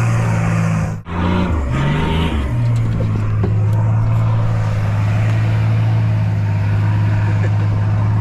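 A 4WD's engine running under way as a steady low drone. About a second in there is a break, the pitch shifts briefly, then it holds steady.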